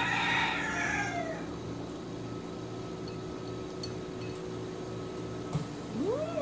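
Two animal calls: a hoarse, falling call lasting about a second and a half at the start, and a short call that rises and falls in pitch near the end. A single click comes just before the second call.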